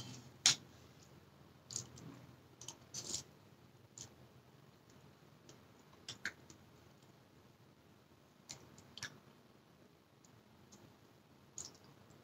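Faint, scattered clicks and clinks of a metal spoon against a ceramic bowl of noodle soup, with a few soft sipping and mouth sounds from tasting the broth, spaced out with quiet gaps between.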